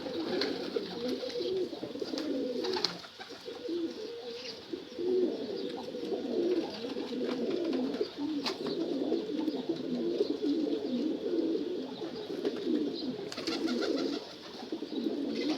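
Several domestic pigeons cooing at once, a continuous overlapping murmur of low calls, with a couple of brief sharp taps about 3 and 8 seconds in.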